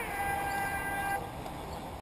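A horn-like tone sounds once, held steady for just over a second, settling briefly downward in pitch as it starts and then cutting off.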